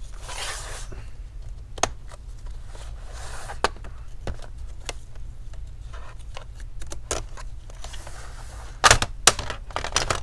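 Plastic prying tool worked along the seam of an HP Pavilion 16 laptop's plastic bottom cover, giving scattered sharp clicks as the cover's clips pop free, with soft scraping. Near the end comes a quick run of louder snaps as the cover comes loose.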